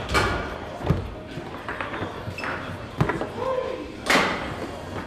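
Foosball play on a Rosengart table: sharp knocks of the balls being struck by the figures and rods banging against the table, a few seconds apart, with the loudest clatter about four seconds in.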